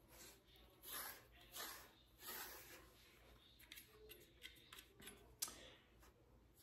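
Faint rustling of hands rubbing and handling a large dog's thick fur, a few soft strokes followed by scattered small clicks.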